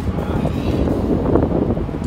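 Wind buffeting the microphone over the steady low rumble of a fishing boat at sea.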